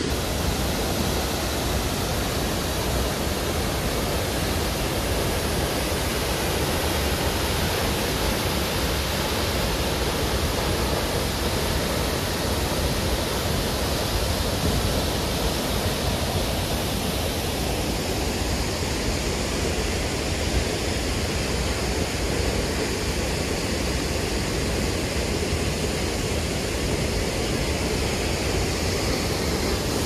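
Large waterfall in rainy-season flow: a steady, even rush of falling water.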